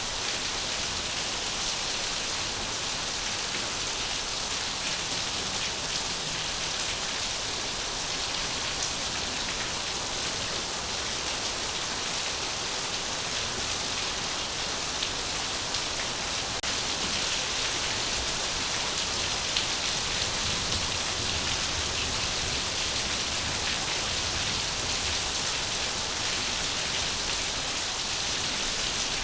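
Steady rain falling: an even, constant hiss of drops that stays the same throughout.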